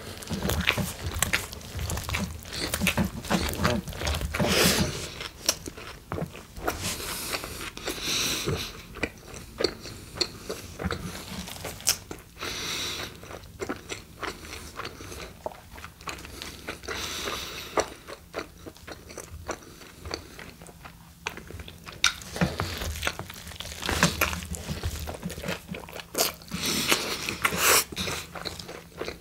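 Close-miked eating of a large Chipotle steak burrito: a bite into the flour tortilla, then chewing with many small mouth clicks and brief noisy swells, and soft rustles of the tortilla being handled.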